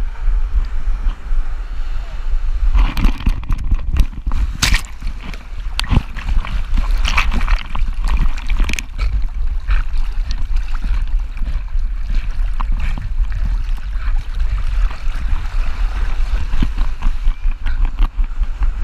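Water splashing and sloshing around a Boston Terrier as it wades and paddles in shallow surf, heard up close from a camera on its back, over a steady low wind rumble on the microphone. The splashing is busiest from a few seconds in to about halfway.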